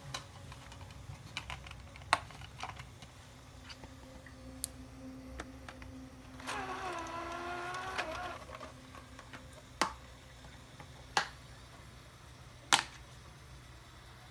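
Sony PlayStation 4's Blu-ray drive taking in a disc: several sharp clicks, and in the middle a whirring whine for about two seconds as the disc spins up.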